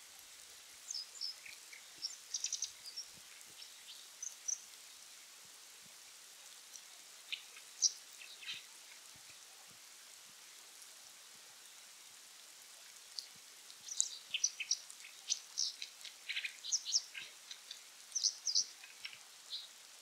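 Brown dipper singing its territorial song: spells of quick, high chirping and trilling notes, one spell in the first few seconds, a short one around eight seconds in, and a longer, busier one in the second half. Light rain patters on the water throughout.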